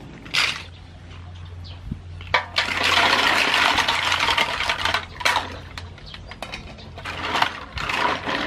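Green mussel shells tipped from a wicker basket into a metal basin of water: a dense clattering, splashing rush from about two and a half seconds in to about five. Around it, shells clicking against each other and the basin and water sloshing as they are washed by hand.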